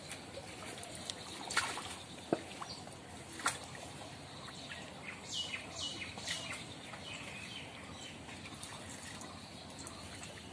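Shallow muddy pond water splashing and trickling as hands grope underwater along the bank, with a few sharp splashes in the first few seconds.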